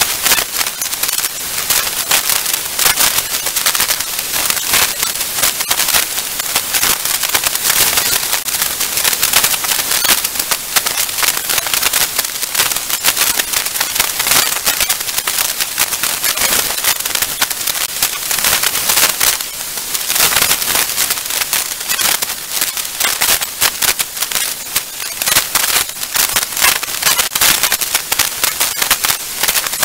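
Hurricane wind and rain on an outdoor camera's microphone, heard as a dense, steady crackling hiss.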